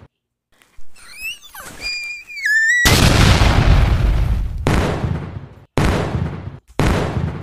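A wavering whistle gliding up and down, then a sudden long, very loud blast about three seconds in, followed by two more abrupt booms about a second apart: dubbed-in explosion sound effects.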